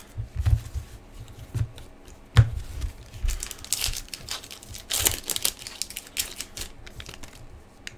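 Foil wrapper of a hockey card hobby pack being torn open and crinkled by hand, in irregular bursts mostly in the second half, with one sharp knock about two and a half seconds in.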